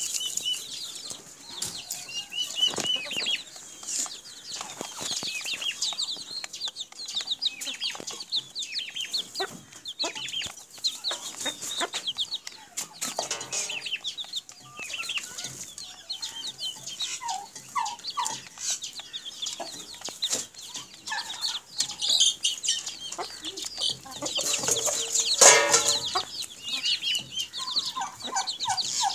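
Chicks peeping in a steady stream of short, high chirps while a hen clucks low among them, with scattered light pecking clicks. A louder call from an adult bird stands out about 25 seconds in.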